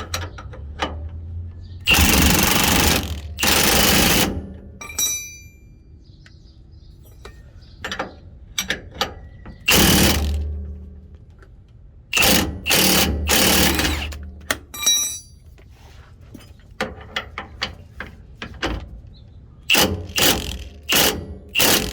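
Impact wrench running in repeated bursts of hammering as it drives bolts, some bursts lasting a second or two and a quick string of short ones near the end. Light tool clicks and clatter come in between.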